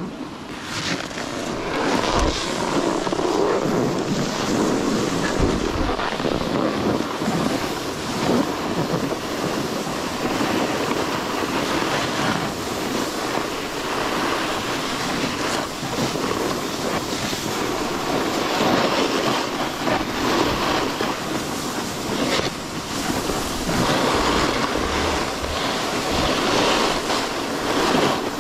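Snowboard sliding and scraping over packed snow during a run, a steady rough rushing that swells and eases with the turns, mixed with wind on the microphone.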